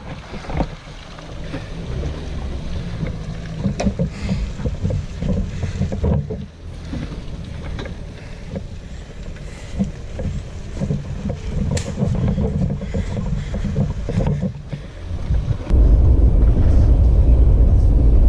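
Four-wheel drive's engine running and working as it crawls through a muddy bog hole, with wind buffeting the microphone and scattered knocks. About 16 seconds in it changes abruptly to a steady, louder low rumble of wind and road noise while driving along a dirt track.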